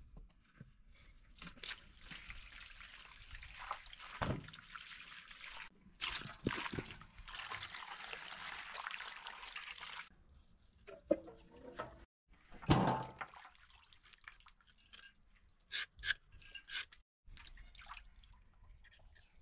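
Water pouring and splashing in two runs of about four seconds each, as the beef legs for khash are washed. After them come scattered knocks and handling sounds.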